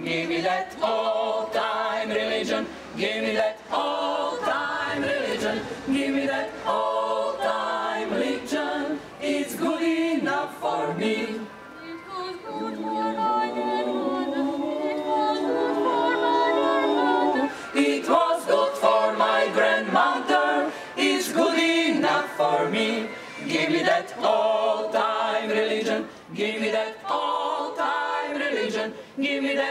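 Women's choir singing a cappella, several voices together with no accompaniment; in the middle the choir holds long sustained chords for a few seconds.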